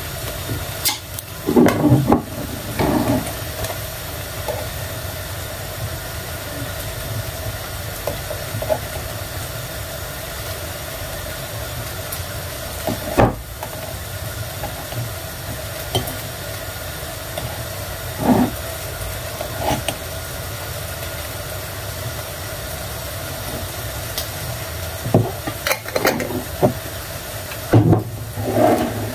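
A knife prying at the metal twist-off lid of a glass pickle jar, then clinking in the glass as gherkins are lifted out: short clusters of clicks and knocks near the start, about halfway, and near the end, over a steady background hiss.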